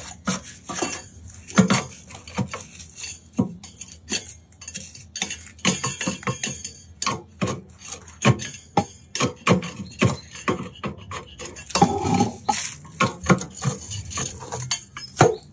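Light background music with frequent irregular clinks and knocks.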